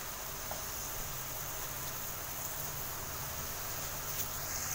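Steady low hiss with no distinct events.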